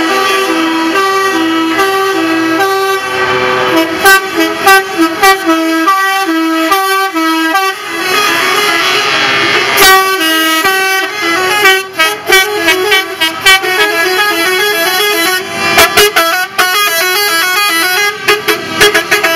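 Truck air horns sounding over and over. They alternate between two notes at first, then play quick runs of stepped notes in a jumble of tones.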